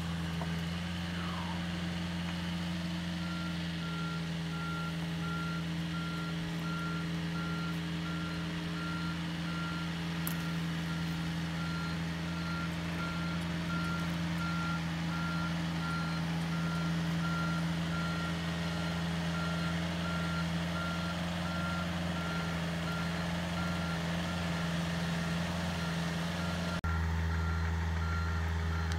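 Komatsu mini excavator's diesel engine running steadily while its travel alarm beeps over and over at an even rate as the machine tracks along. Near the end the engine sound becomes louder.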